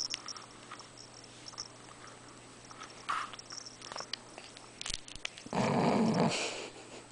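A baby mouthing and sucking on her fist and the cuff of her knit sweater, with small wet clicks of the mouth. About five and a half seconds in there is one loud, rough breathy sound lasting about a second.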